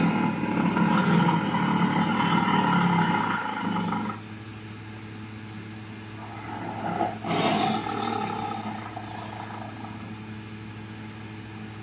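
Daspletosaurus roar sound effects, a designed dinosaur voice: one long, loud roar lasting about four seconds, then a shorter second call about halfway through. A steady low hum runs underneath.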